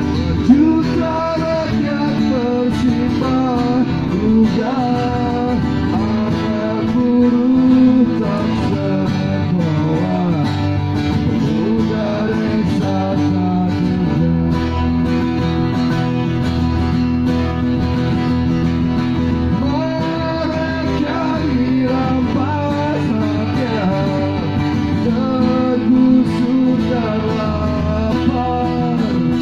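Two acoustic guitars played together in a live acoustic duo, with a man singing over them.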